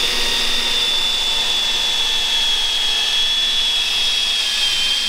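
Festool cordless drill with a countersink bit running steadily as it bores a countersunk screw hole into a wooden block: a steady high whine over a haze of cutting noise, dipping slightly in pitch near the end.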